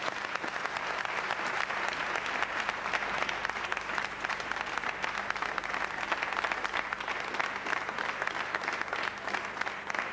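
Audience applauding: dense, steady clapping that keeps up at an even level.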